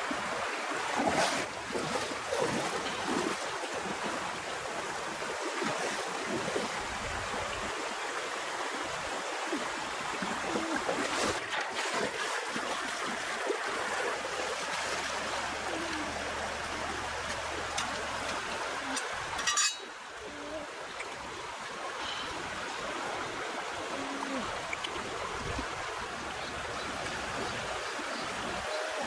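Shallow, rocky river rushing steadily over stones, with a few brief sharp splashes.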